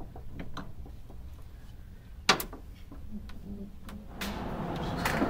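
Steel chain of a chain hoist clicking and clinking as a heavy electric motor is lowered on it, with one sharp metal clank about two seconds in. A steady noise comes up about four seconds in.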